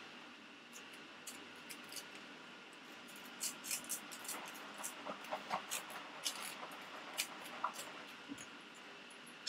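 Table knife spreading butter over crisp toasted raisin bread: a run of short, irregular scrapes and clicks against the toast, busiest in the middle.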